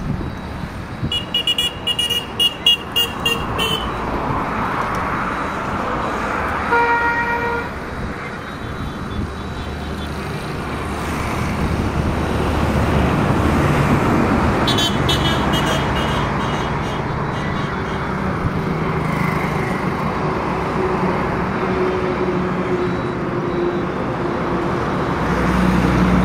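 Motor vehicle engines running, with a single horn toot of about a second roughly seven seconds in. Two spells of rapid high-pitched beeping come early and again about halfway through.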